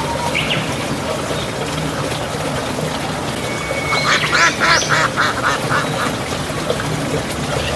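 Duck quacking: one short call near the start, then a quick run of about eight quacks about four seconds in, over steady background noise.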